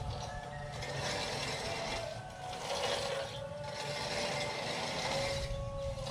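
Manual reel push mower running over grass, its spinning blades whirring and cutting in repeated surges as it is pushed along.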